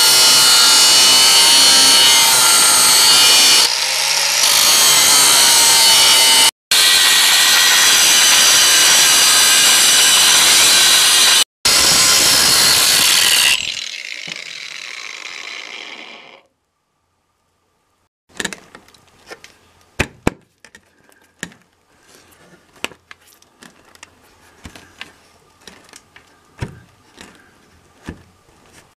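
Angle grinder with a cutting disc running under load, cutting through the metal fixings between an old window frame and concrete, with its pitch wavering as the disc bites. About 14 seconds in it is switched off and winds down to a stop; after a short silence come scattered light knocks and taps.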